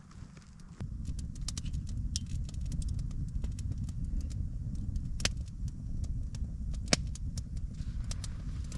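Campfire burning: a steady low rumble of flames with scattered sharp crackles and pops of burning wood, two of them louder. The rumble starts about a second in and fades just before the end.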